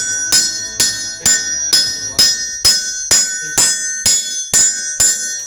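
Hammer striking hot rebar on a steel anvil in a steady rhythm, about two blows a second. Each blow leaves a high, bell-like ring from the anvil.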